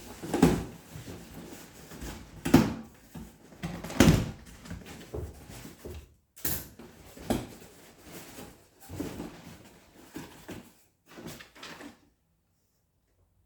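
Cardboard box being handled and opened, with several heavy thumps and scraping and rustling, then dead silence near the end.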